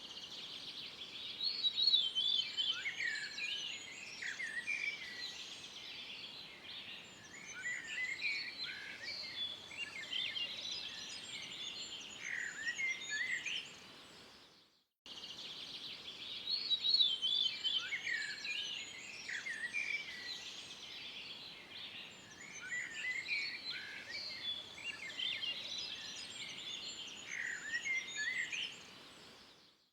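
Several birds singing and chirping together over a soft steady hiss. The same stretch of birdsong, about fifteen seconds long, plays twice as a loop, fading out and dropping to a brief silence about halfway through.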